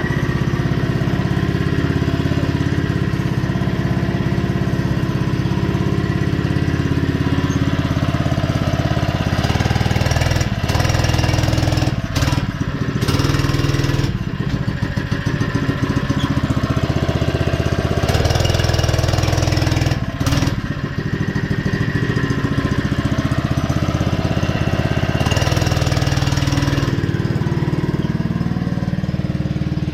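Small single-cylinder engine of a vintage mini bike running under throttle, its speed rising and falling, with a few abrupt breaks in the sound.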